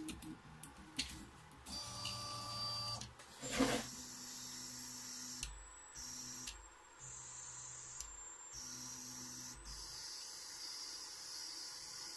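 Stepper motors of a CoreXY 3D printer running through a series of short moves while it prints a single 0.2 mm first layer. The hum shifts between a couple of pitches every half second to a second as the print head changes direction, over a steady high hiss, with a sharp click at the very start.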